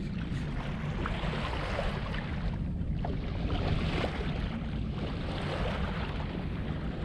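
Wind buffeting the microphone over the wash of sea water along the hull of a sailing yacht under way. It is a steady rushing noise with a heavy low rumble.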